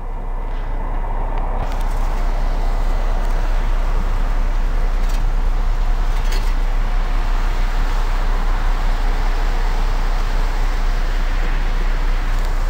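City bus engine running close by: a loud, steady low rumble.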